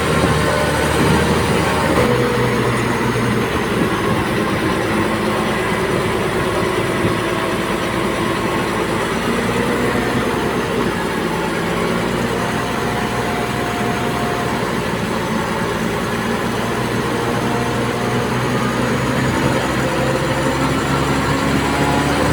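Komatsu D58P crawler bulldozer's diesel engine running steadily under load, its pitch drifting slowly up and down as it works, with the metallic clatter of its steel tracks.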